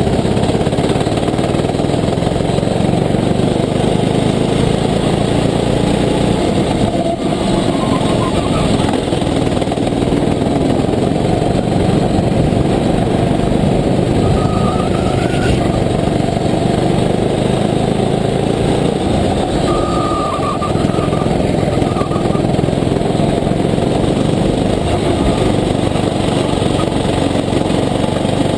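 Sodi rental kart's engine running steadily under racing, heard from the driver's seat.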